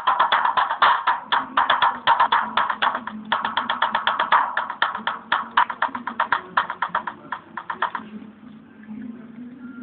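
Background music with a fast percussive beat, which fades down about eight seconds in to a quieter stretch.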